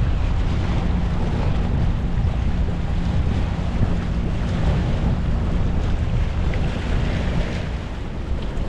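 Strong wind blowing across the microphone, a steady rumble with no let-up.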